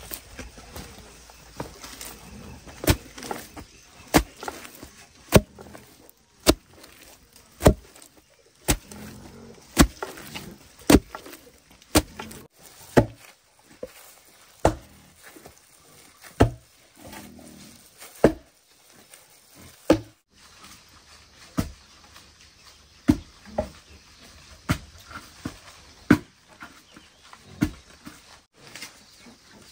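A long wooden pestle pounding steamed glutinous rice in a stone mortar into dough for rice cakes: a steady run of heavy strokes about one a second, spacing out a little toward the end.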